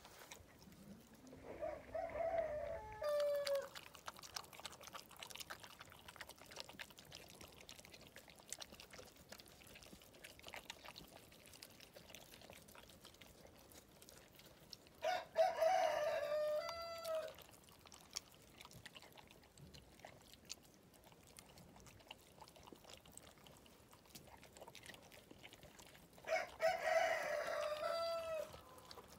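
Three long, drawn-out animal calls, each about two seconds long and ending with a falling drop in pitch: one near the start, one about halfway through and one near the end. Faint scattered ticks come between them.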